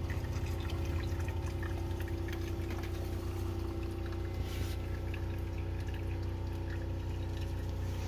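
Water poured in a circular motion over coffee grounds in a pour-over coffee maker's mesh filter, with brewed coffee trickling through into the glass carafe below. A steady low hum runs underneath.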